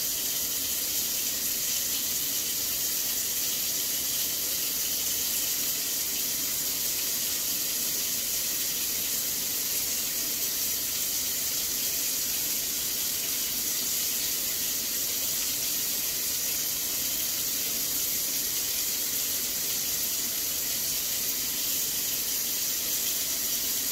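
Kitchen faucet running steadily into a stainless steel sink, an even hiss of water.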